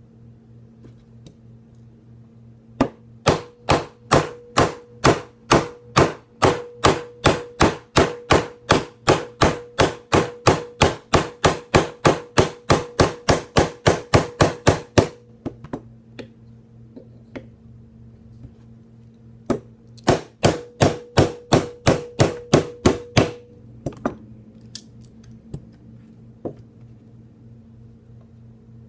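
Small hammer tapping steadily, about three strikes a second, to drive a pin out of a Smith & Wesson M&P Shield 9mm pistol's frame, each strike ringing a little. Two runs of taps: a long one of about forty strikes, a pause, then a shorter run of about a dozen, followed by a few light knocks.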